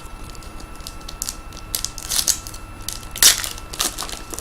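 Trading cards and their pack being handled, with a string of short crinkling, rustling scrapes as cards are slid and shuffled. The loudest rustles come a little past the middle.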